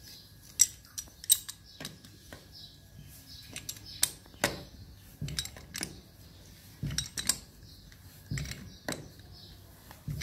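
Sharp metallic clicks and knocks of a pipe wrench and brass fittings being handled on a chrome shower mixer body, coming in irregular clusters; the loudest clicks are about a second in.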